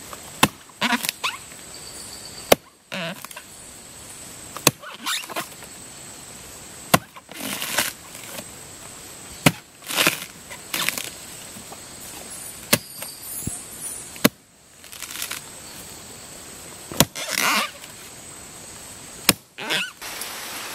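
Axe blows chopping into a soft, rotting palm trunk, irregular strikes every second or two, some sharp cracks and some duller, longer hits into the fibrous wood.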